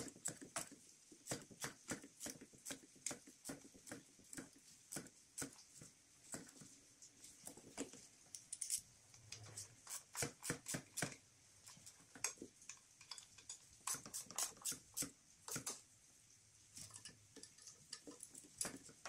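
Quiet, irregular clicks and taps of a hand tool and metal fittings as an EGR delete kit is bolted onto a diesel engine's intake manifold.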